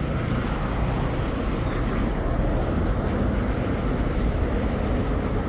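Steady rumble of city traffic passing on a street.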